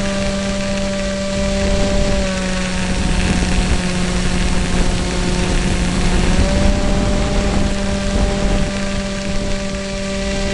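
Electric motor and propeller of an EasyStar model plane running in flight, heard from on board: a steady whine over a rush of wind. The pitch drops slightly about two seconds in and comes back up about six and a half seconds in, as the throttle is eased and opened again.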